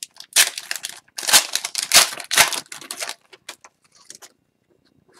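Wrapper of an Upper Deck hockey card pack crinkling and tearing as the cards are pulled out, then dying down after about three seconds to a few light clicks of the card stack being handled.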